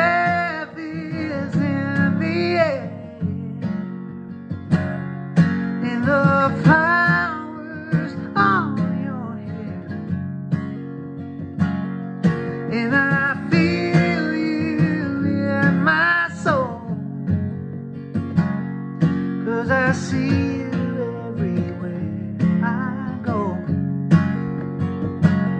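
Acoustic guitar strummed steadily, with a man's voice singing long, bending notes over it in several phrases.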